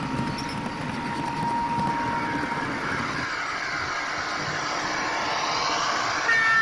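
00 gauge model freight train of 42 ft container flats running past at speed, a steady mechanical running sound with wavering high wheel squeal in the second half and a short high tone near the end.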